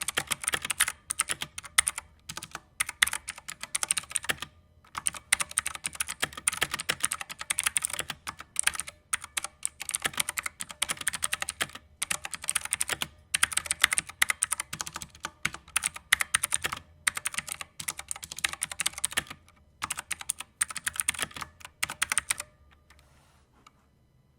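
Typing on a Redragon Kumara K552 tenkeyless mechanical keyboard: quick runs of key clacks with short pauses, stopping about 22 seconds in.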